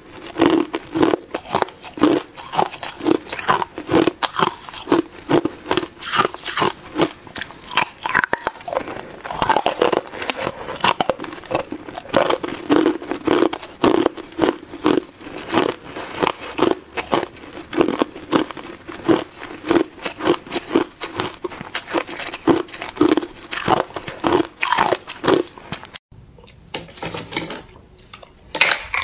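Hard ice being bitten and chewed, close to the microphone: a fast, continuous run of sharp cracks and crunches as the chunks break between the teeth. The crunching stops briefly near the end, then starts again.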